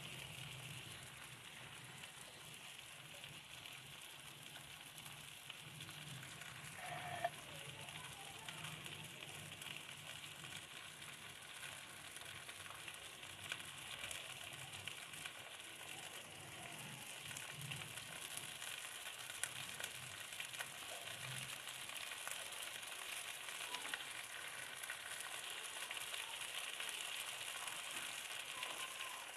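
Cut okra sizzling in hot oil in a kadhai on a medium flame, lightly frying: a quiet, steady crackling sizzle that grows slightly louder toward the end, with one brief knock about seven seconds in.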